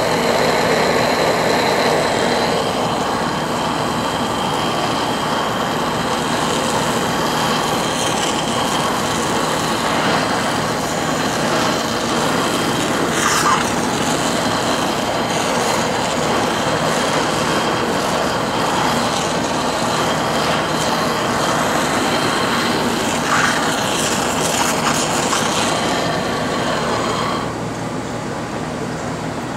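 Handheld blowtorch flame burning steadily with a loud rushing hiss as it chars a marshmallow Peeps bunny, with a couple of brief louder crackles. The torch cuts off near the end, leaving a quieter steady noise.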